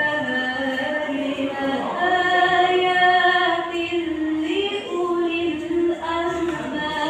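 A young female voice reciting the Quran in melodic tilawah style, unaccompanied, holding long notes that waver and turn slowly in pitch.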